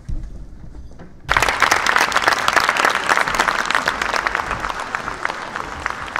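Audience applauding, breaking out suddenly about a second in and carrying on as dense, steady clapping.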